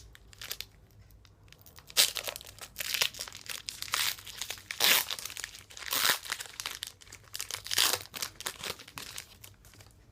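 A Donruss football card pack's wrapper being torn open and crinkled by hand: a run of irregular crackly rustles, louder in spurts.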